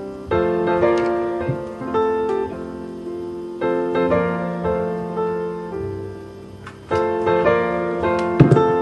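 Background piano music playing a gentle run of chords and melody notes. A brief sharp knock sounds over it near the end.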